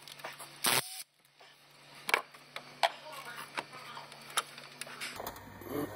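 Scattered metallic clicks and light knocks of a tool and bolts being handled as the water pump bolts come out, with a sharper knock a little under a second in.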